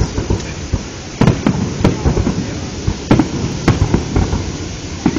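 Fireworks shells bursting overhead: a string of sharp bangs at uneven intervals, several close together just after a second in and more around three seconds in, over a constant low rumble.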